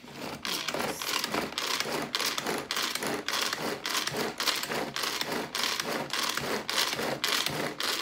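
Tupperware Power Chef pull-cord chopper being pulled again and again, about three pulls a second, each a short whirring zip of the cord and gears as the blade spins through cooked potatoes with butter and milk to mash them.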